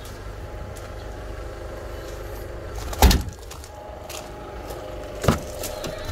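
Kia Sportage's tailgate shut with one loud thud about three seconds in, then a sharper, smaller click near the end as a rear side door's latch is opened.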